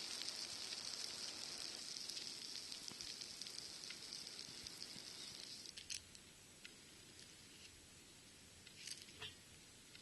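Hot oil sizzling and crackling as small river fish (oikawa) deep-fry; the sizzle cuts off about six seconds in, leaving only a few faint clicks.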